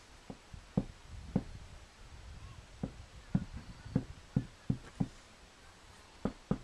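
Footsteps of someone walking with a handheld camera, heard as about a dozen dull, uneven thumps over a faint low wind rumble.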